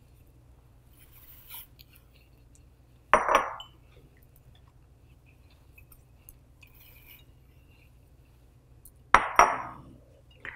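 Small ceramic bowl clinking against glass twice, about three seconds in and again near the end, as moringa leaves and flowers are tipped from it into a glass mixing bowl. Faint rustling in between.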